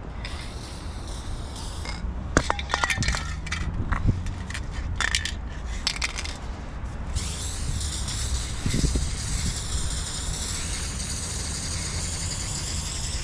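Aerosol spray-paint can shaken, its mixing ball rattling in a few bursts of clicks, then a long steady hiss of paint spraying from about seven seconds in. A steady low rumble runs underneath.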